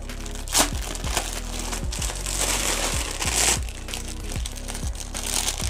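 Thin clear plastic bag crinkling as a wristwatch is pulled out of it, with a sharp crackle about half a second in and a longer stretch of rustling in the middle. Background music with a steady beat underneath.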